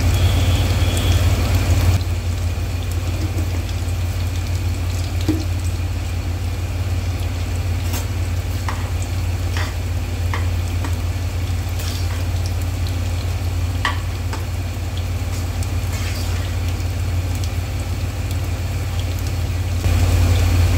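Potatoes frying in mustard oil in a pan, a steady sizzle over a constant low hum. A ladle stirs the pulao in the pot beside it, with a few light clinks against the pot in the middle stretch.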